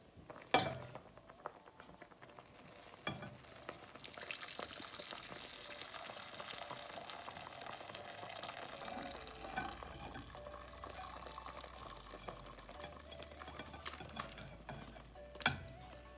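Hot milk pouring from a steel pan into a glass bowl, a steady splashing pour that starts about four seconds in and runs until near the end. A sharp knock comes about half a second in, a softer one near three seconds, and another just before the end.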